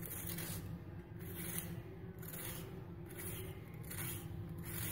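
Vegetable peeler scraping the ridged skin off a bitter gourd (karela), in repeated short scraping strokes about one a second, faint over a steady low hum.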